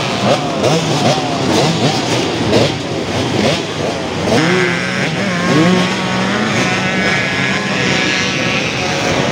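Several vintage motocross bikes racing, their engines revving up and down through the gears, with the pitches of different bikes overlapping.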